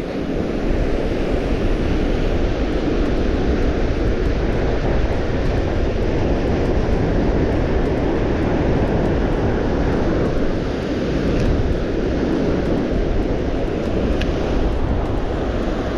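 Strong gusting wind buffeting the microphone: a loud, steady rushing roar.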